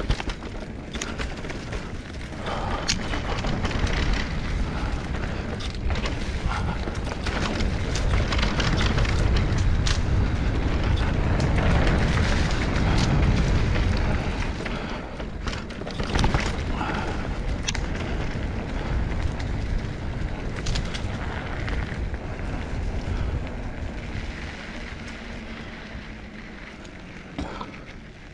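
Wind rushing and buffeting over a GoPro's microphone. It builds to a heavy low rumble about halfway through, then eases off toward the end, with scattered sharp knocks and clicks.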